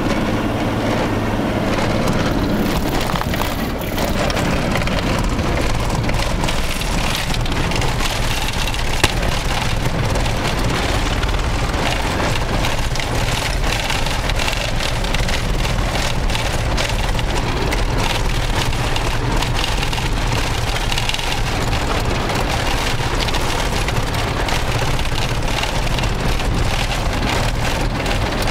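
Inside the cab of a Toyota Land Cruiser driving over a corrugated sand track: a constant, dense rattling of the body and interior over the low drone of the engine and tyres, as the truck shakes on the corrugations even with its tyres let down to 15 PSI. A sharp knock about nine seconds in.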